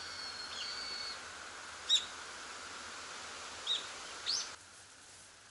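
A few short, high bird chirps and one brief held whistle over a steady background hiss; the hiss cuts off abruptly near the end.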